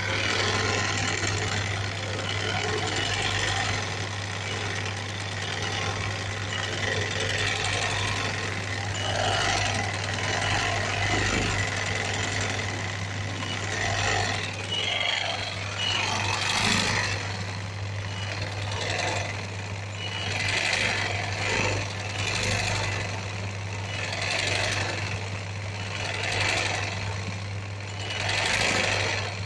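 Sewing machine stitching embroidery in a wooden hoop: a continuous fast mechanical rattle of the needle over a steady low hum, swelling in short runs every couple of seconds in the second half.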